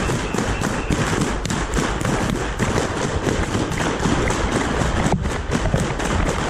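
Wind rumbling on the microphone of a camera carried by a person walking, with footsteps and knocks repeating a few times a second.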